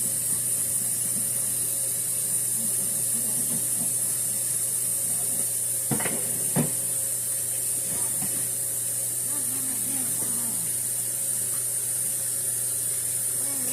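Steady high hiss over a low hum, with two short knocks about half a second apart midway through.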